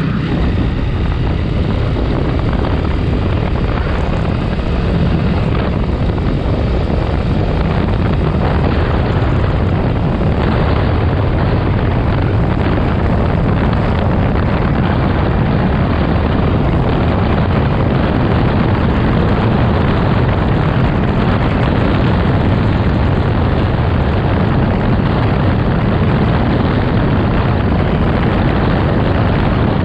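Heavy wind noise buffeting a handlebar-mounted action camera on a moving motorcycle: a steady, loud low rumble that swells slightly about five seconds in.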